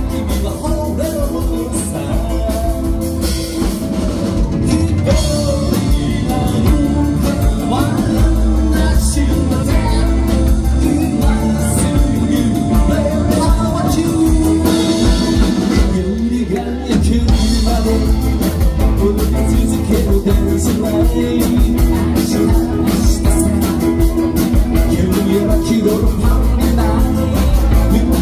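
Live band playing a rock-and-roll number: a male singer with electric guitars, bass guitar and drum kit, all running continuously and loudly.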